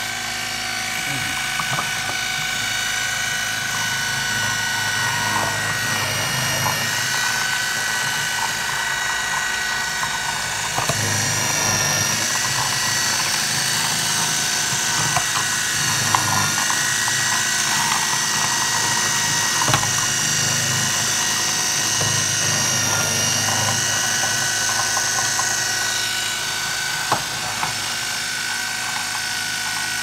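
KitchenAid food processor motor running steadily on high, shredding broccoli pressed down the feed tube. It gives a steady whine that steps up slightly in pitch a couple of times, with a few short knocks.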